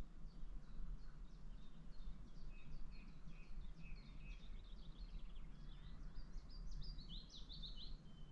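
Songbird singing in the evening forest: a long run of quick, high notes that speeds up and ends in a louder flourish near the end, over a low steady background rumble.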